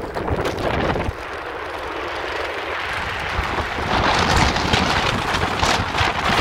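Wind rushing over the microphone and tyre rumble from an electric scooter riding at speed on an asphalt path, getting louder about four seconds in.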